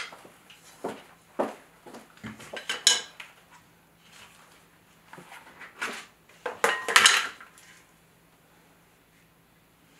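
Scattered clinks, knocks and scrapes of kitchen utensils, a metal ice cream scoop and a spoon, against a glass mixing bowl and a plastic ice cream tub as vanilla ice cream is opened and scooped out. The loudest knocks come about three seconds in and about seven seconds in.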